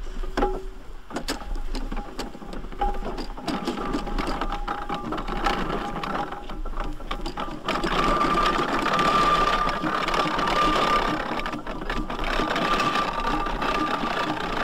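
A 1901 Burrell agricultural steam traction engine running, its motion giving a dense, rapid mechanical clatter. About eight seconds in it grows louder and a steady high tone rings over the clatter.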